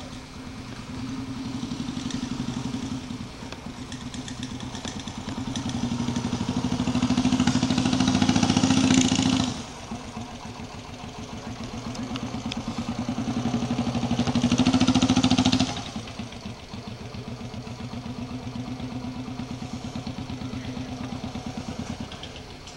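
Norton Commando 850 air-cooled parallel-twin engine idling with a steady beat. It is revved up twice, each time climbing over a few seconds and then dropping back sharply to idle.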